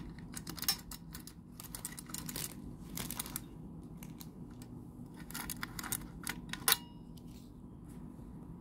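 Keys jangling on their ring and scattered small clicks as a key is worked in the lock cylinder of a baseball-bat-style steering wheel lock and the bat is handled. A sharper click comes near the end, with a brief faint ring after it.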